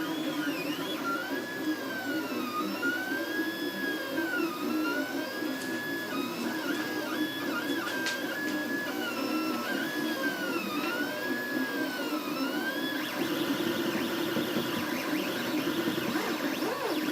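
HyperCube 3D printer's stepper motors whining in rising and falling arcs of pitch as the print head speeds up and slows down, over a steady hum. About thirteen seconds in, the arcs give way to a busier, rougher chatter of short quick moves.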